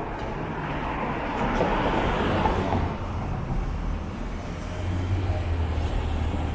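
City traffic: a vehicle passes, loudest about two seconds in, followed by the low hum of a heavy engine running nearby.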